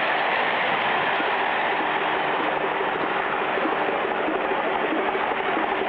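Steady roar of a packed grandstand crowd, with the even hum of the race car and biplane engines beneath it.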